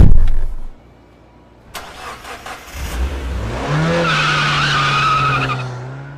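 A loud bang, then an engine-like sound that rises in pitch about three seconds in, holds steady with a hiss over it, and fades near the end.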